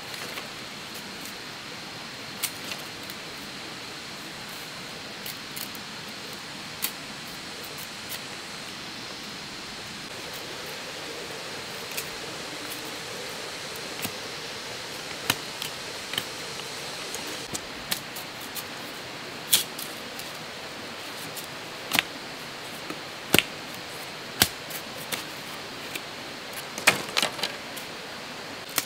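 Sharp clicks and cracks of a machete splitting and trimming bamboo strips, scattered irregularly and coming more often in the second half. Under them runs a steady hiss of forest ambience with a faint high steady tone.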